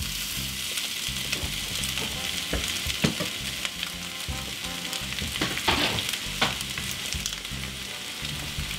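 Raw ground pork sizzling in hot olive oil in a cast-iron skillet: a steady frying hiss with scattered pops, as the meat starts to brown.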